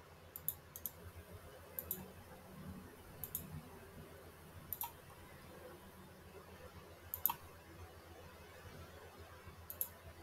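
Computer mouse clicking: about seven short, sharp clicks spread out irregularly, several in quick pairs, over a faint low hum.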